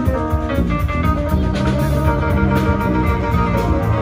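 A small band playing jazz-style music, with guitar and drum kit, continuous and steady.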